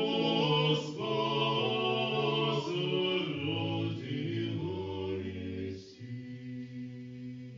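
A choir singing a cappella, several voices together. About six seconds in, the singing gives way to a steady held chord.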